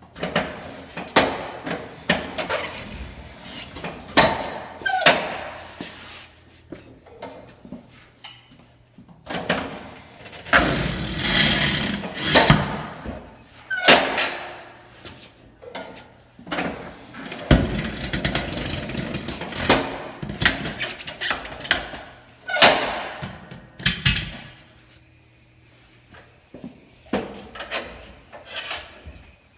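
A tyre changer's bead-breaker arm pressing the tyre bead loose from a wheel rim at points around the tyre, with repeated knocks and clunks of metal and rubber and two longer noisy stretches.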